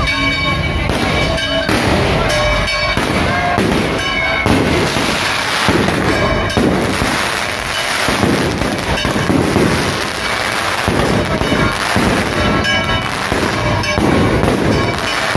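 Aerial fireworks going off in rapid succession: a dense, continuous barrage of launches, pops and crackling bursts.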